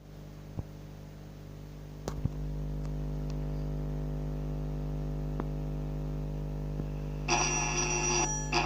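A steady low hum with a few faint clicks. About seven seconds in, an alarm starts ringing in bursts of about a second with short gaps.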